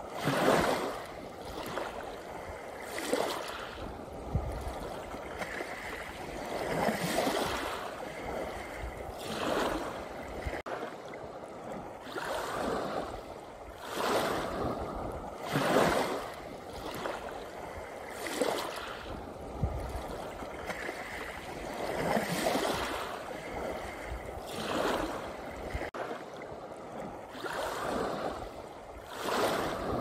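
Small sea waves breaking and washing up a pebble beach, a rush of surf swelling and falling back every two to four seconds.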